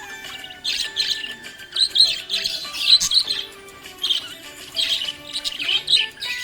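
Budgerigar chirping and warbling in short bursts of quick high chirps.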